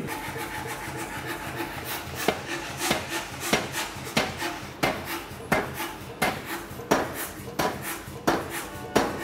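Beché air power hammer striking a hot block of 4140 steel between its dies: a steady run of sharp blows, about three every two seconds.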